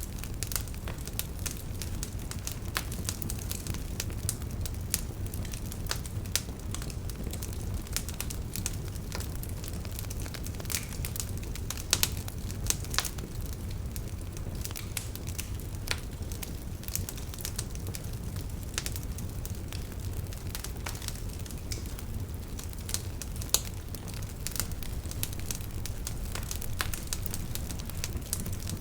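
Wood campfire burning, with a steady low rumble of flame and irregular crackles and sharp pops from the burning wood.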